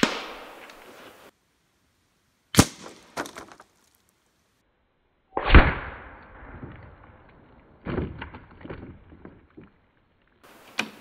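.22 LR rifle firing CCI segmented hollow points. A sharp crack fades at the start, and another sharp crack comes about two and a half seconds in. About halfway through comes the loudest report, duller, followed by a few light knocks.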